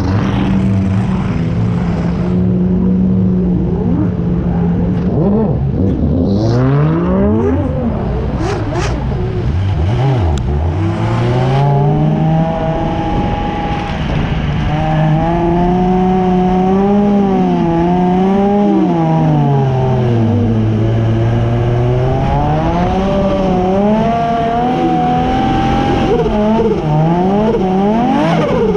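Drift car's engine heard from on board, revving hard with its pitch climbing and dropping again and again as the throttle is worked through the slides.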